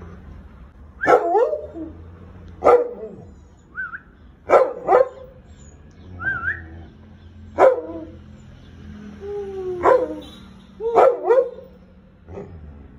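Large American Akita barking repeatedly, a single bark or a quick pair every couple of seconds. Two short high rising whistles fall between the barks.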